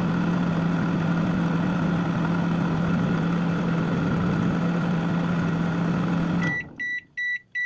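Microwave oven running with a steady hum and fan noise, which cuts off about six and a half seconds in, followed by three high beeps marking the end of the heating cycle.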